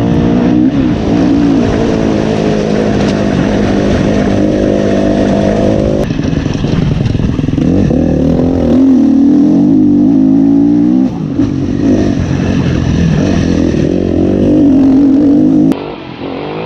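Dirt bike engine running loud as the bike is ridden, its pitch rising and falling with the throttle and gear changes. The sound changes abruptly about six seconds in and again near the end.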